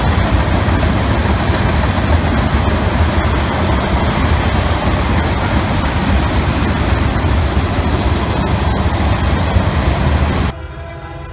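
Freight train of tank cars rolling past close by: a steady, loud rumble of steel wheels on rail, with a few sharp clicks. About ten and a half seconds in it cuts off suddenly to a much quieter background.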